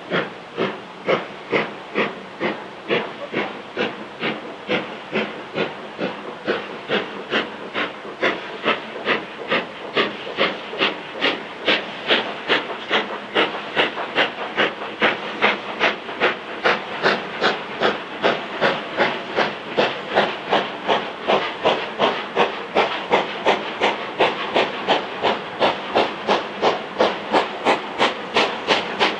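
LMS Black Five No. 45212, a two-cylinder 4-6-0 steam locomotive, working under load with a sharp, even exhaust beat of about two to three chuffs a second. The beat quickens a little and grows louder as the engine comes closer.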